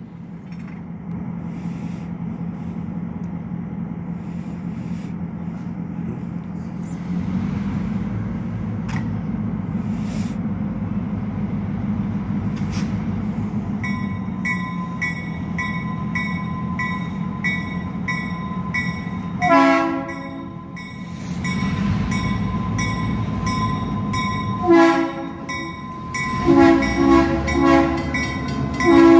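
Approaching Norfolk Southern diesel freight locomotives: a steady engine rumble, with a bell ringing from about halfway on. The horn sounds once about 20 s in, again about 25 s in, then in several short blasts near the end, the warning for the Fleming Pike grade crossing.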